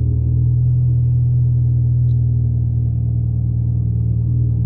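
Mitsubishi Lancer Evolution X's turbocharged 2.0-litre four-cylinder idling steadily, warming up just after a cold start.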